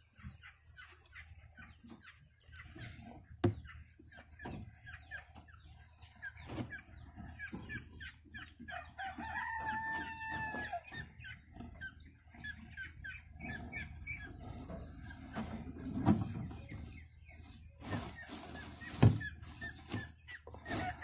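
Chickens clucking, with a rooster crowing once in a long held call about nine seconds in. Rustling and a few sharp knocks come from hands moving the hay of a rabbit nest.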